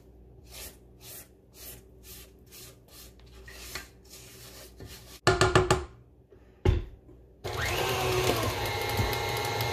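Silicone spatula scraping cake batter around a stainless steel stand-mixer bowl in rhythmic strokes, then a few quick knocks against the bowl and a thump. About three quarters of the way in, the motor of a KitchenAid tilt-head stand mixer starts and runs steadily, mixing the batter.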